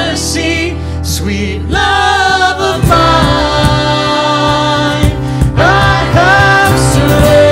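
Worship music: singing over sustained instrumental accompaniment.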